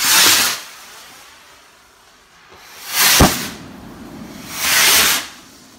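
Three firework rockets, Hallmark Sky Hunter hawk-type rockets and a Portek salute rocket, launching one after another. Each lift-off is a rushing hiss lasting under a second, and a single sharp bang, the loudest sound, cracks out about three seconds in.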